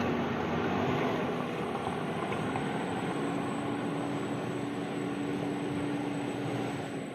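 4x4 pickup truck's engine revving hard under load as it pushes through deep mud, held at a high pitch that steps up a little about three seconds in, fading gradually as the truck pulls away.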